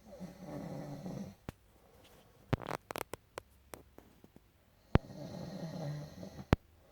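Heavy snoring: two long snores about five seconds apart, with a run of short, sharp clicking snorts between them.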